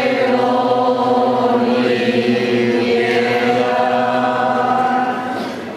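A group of voices singing a slow religious hymn, with long held notes.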